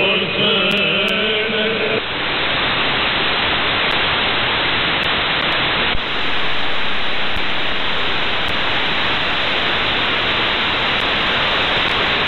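Church chant on the Voice of Greece 9420 kHz shortwave broadcast stops about two seconds in, leaving steady shortwave static and hiss from the receiver. About six seconds in, the hiss briefly dips and then comes back brighter as the station's signal goes off air.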